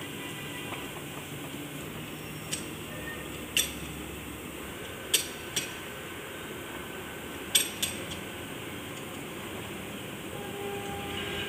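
Steel hand tools clinking against a steel truck wheel hub while its broken studs are worked out: about six sharp metallic clinks, scattered and irregular, over a steady low hum.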